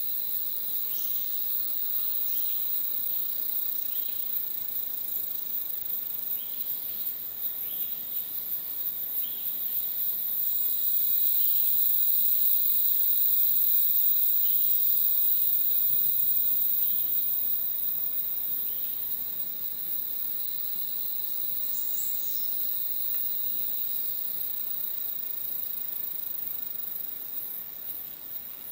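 Tropical rainforest insect chorus: a steady shrill whine and a very high, rapidly pulsing trill. A second, higher tone joins partway through, and the chorus swells louder in the middle before easing back.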